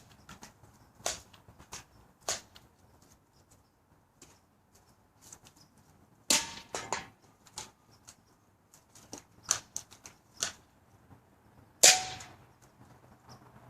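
Series of sharp snaps and clicks from a BB gun, irregularly spaced, with two louder cracks: one about six seconds in and the loudest near the end, each with a brief ring.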